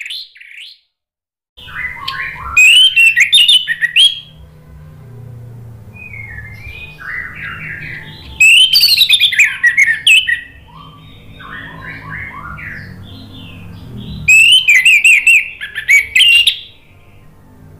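Orange-headed thrush singing: three loud bursts of quick, high, varied whistled phrases, with softer warbled phrases between them.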